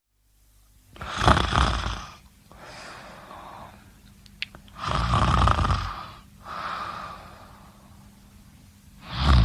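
A person snoring: two loud snores about four seconds apart, each followed by a softer breath.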